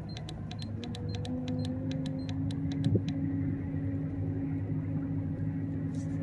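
Hobie Pro Angler 360 kayak's drive running as the kayak gets under way against the current: a steady low drone, with a higher tone setting in about a second in. A rapid ticking, about five a second, fades out in the first few seconds, and there is a single knock about three seconds in.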